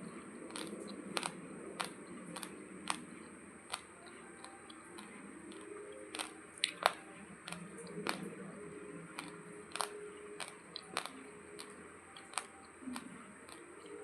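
Raw long-grain basmati rice being chewed: hard grains cracking between the teeth in irregular sharp crunches, about one or two a second, over soft mouth sounds.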